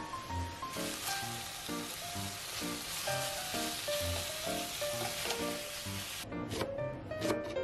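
Minced meat sizzling loudly as it browns in a frying pan and is turned with a spatula. A kitchen knife chops on a cutting board in short clicks just before the sizzle starts, and again after it cuts off near the end.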